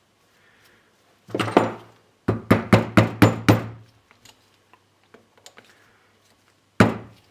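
Light metal taps on a rear brake caliper, seating the clip that holds the piston's rubber dust boot: one tap, then a quick run of about six, and a last one near the end.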